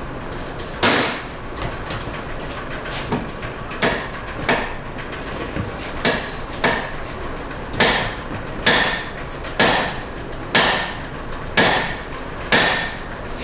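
A big hammer striking the steering spindle again and again to drive out the stuck remains of a broken outer tie rod end: about a dozen sharp metal blows, irregular at first and then roughly one a second, several with a short ring.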